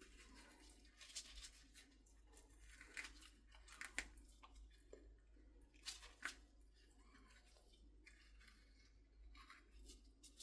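Faint scattered clicks, scrapes and light crackling of food being prepared by hand, with a few sharper taps about four and six seconds in.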